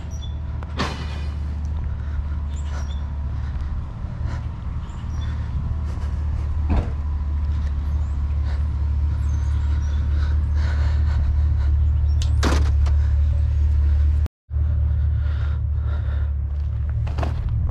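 Truck driving, with a steady low engine and road rumble and a few sharp knocks or rattles.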